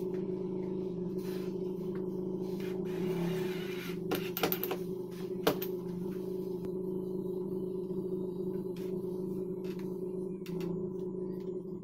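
A steady low hum under light knocks and clicks as a laminated plywood panel is handled and fitted against a cabinet frame. The sharpest clicks come about four seconds in and again about a second later.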